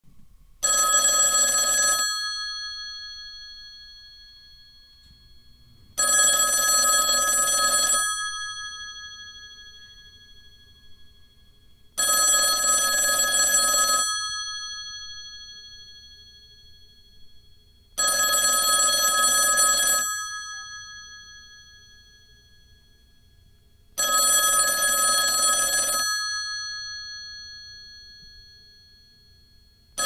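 Telephone ringing: five rings, each about two seconds long and starting every six seconds, with pitched tones fading out after each ring.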